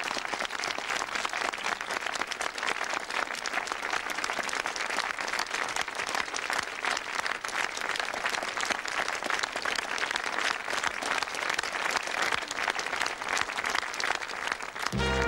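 Audience applauding steadily; a band starts playing again right at the end.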